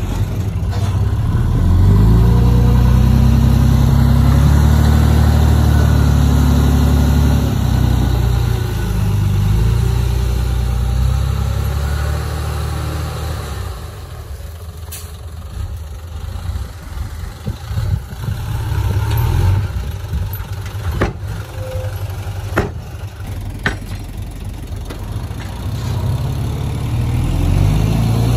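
Heavy earthmoving machine's diesel engine working under load, rising in pitch about a second in and running loud, then easing off about halfway through and picking up again near the end. A few sharp metallic knocks sound while the engine is quieter.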